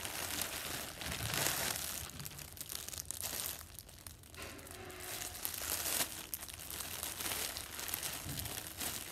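Plastic packaging crinkling and rustling as it is handled: a torn-open silver mailer bag and a clear plastic bag of squishy toys, in irregular bursts with a short lull partway through.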